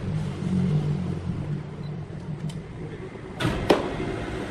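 A machine engine running steadily with a low hum, with a sharp knock about three and a half seconds in.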